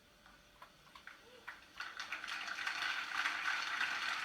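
A congregation breaking into applause about two seconds in, many hands clapping in a steady crackle after a quiet moment.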